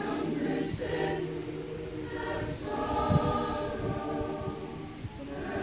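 A choir singing, several voices together holding long notes in harmony.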